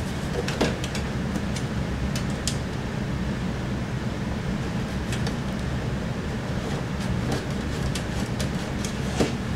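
Scattered small metallic clicks and scrapes as a power supply's mounting screws are fitted by hand into the steel back panel of a desktop computer case, over a steady low hum.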